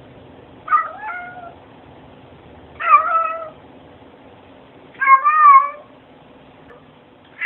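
A domestic cat meowing three times, each meow short and pitched, about two seconds apart.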